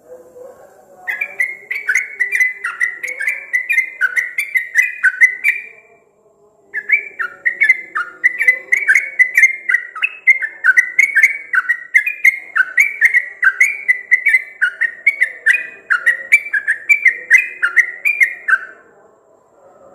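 Rapid run of clear whistled notes, each sliding down in pitch, about three a second. The run breaks off for about a second some six seconds in, then resumes and stops near the end.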